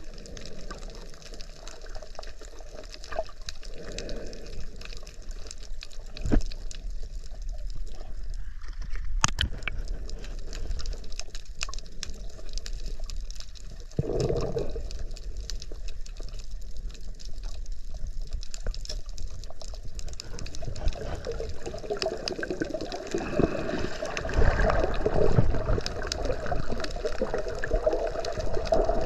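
Water rushing and bubbling around a camera during a spearfishing dive, with a few sharp knocks. It grows louder and busier in the last third.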